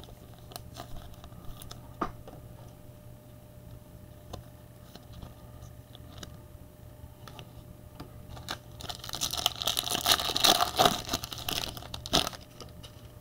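Light clicks and taps of trading cards being handled, then, about nine seconds in, a few seconds of crinkling and tearing as a foil trading card pack wrapper is ripped open.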